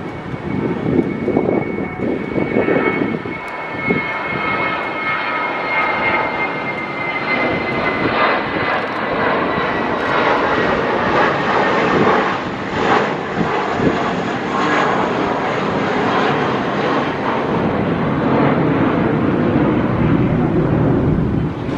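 Airbus A320-family twin-jet airliner climbing out after takeoff: a loud steady jet engine roar with a high fan whine that slowly falls in pitch as the aircraft moves away.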